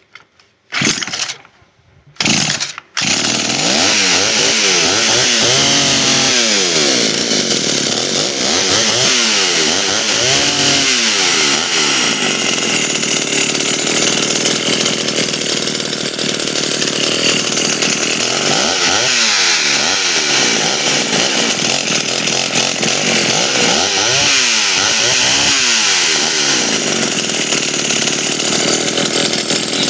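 Vintage Pioneer 1074 two-stroke chainsaw being pull-started. It gives two short bursts, catches about three seconds in, then runs steadily and is revved up and down several times.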